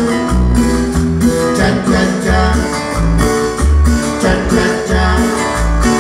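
Live band music amplified through a stage sound system, with a bass pulsing on a steady beat under held and plucked notes.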